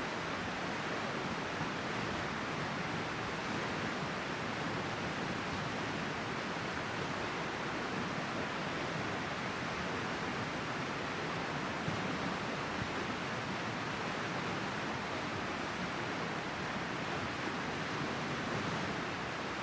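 A river flowing, its water rushing in a steady, unbroken hiss.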